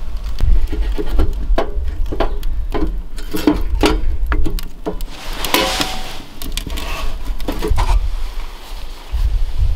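Fire being lit in a small stainless-steel wood stove: a run of irregular sharp clicks and knocks, then a brief rushing rustle about five seconds in, over a low rumble of wind on the microphone.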